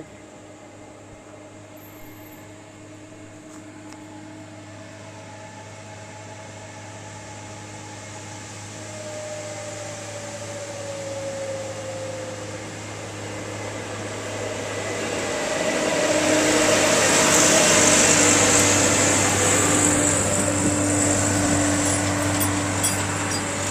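Tomato harvester's engine and machinery running as it draws near, growing steadily louder, loudest about three-quarters of the way through, then easing a little.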